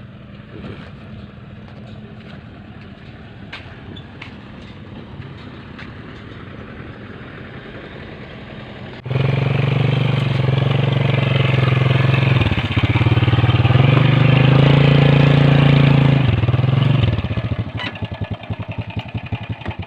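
Motorcycle engine running as it is ridden: a steady hum at first, then suddenly much louder with a hiss about nine seconds in, the pitch dipping twice, before it slows to a pulsing putter near the end and cuts off.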